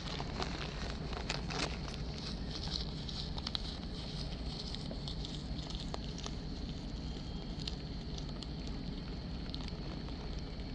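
Rabbit chewing fresh leaves close to the microphone: quick, crisp crunching clicks, dense for the first few seconds and then sparser, over a steady low hum.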